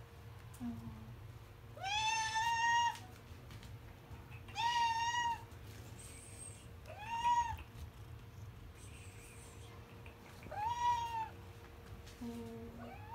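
Hungry domestic cats meowing for food: four long meows a couple of seconds apart, each rising and then falling in pitch, with a short quieter mew near the start and another near the end.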